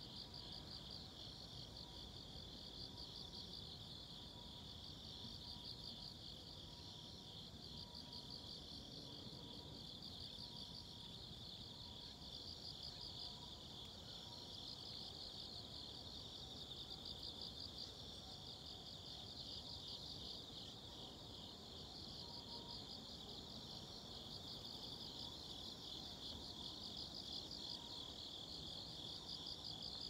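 Steady chorus of singing insects in a field: a continuous high-pitched trill with a fast, even pulsing texture, fairly faint.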